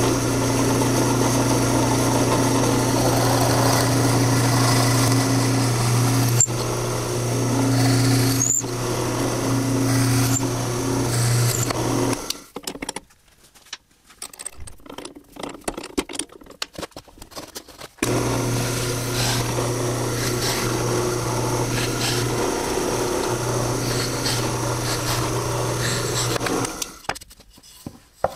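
Drill press motor running with a steady hum while drilling holes in plywood, with a few sharp clicks. It drops out about twelve seconds in for several seconds of light knocks and handling, then runs again and stops near the end.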